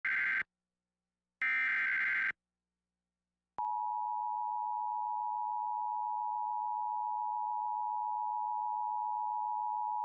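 Emergency Alert System activation for a severe thunderstorm warning. Two short bursts of shrill, warbling SAME header data about a second apart, then about three and a half seconds in the steady two-tone EAS attention signal begins and holds.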